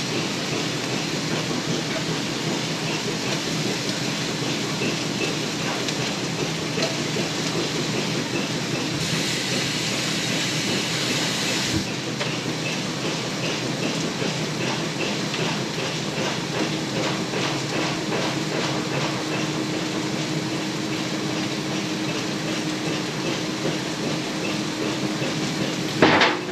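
Bacon frying in a pan on a gas burner: a steady sizzle with crackling, over a low steady hum. A brief loud bump comes near the end.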